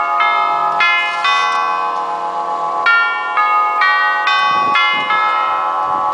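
Herschede Model 217 hall clock's tubular chimes playing a melody, the tubes struck one after another about half a second apart. A short pause near two seconds separates two phrases, and the tubes are left ringing after the last stroke.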